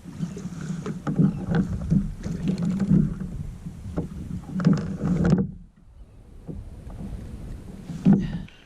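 Irregular knocks and thumps on a kayak's hull, with some water noise, from gear being handled and moved aboard. The sound drops away sharply about five seconds in, and one more thump comes near the end.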